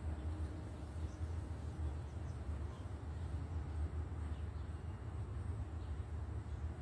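Steady low background rumble with faint ambient noise and no distinct sound event.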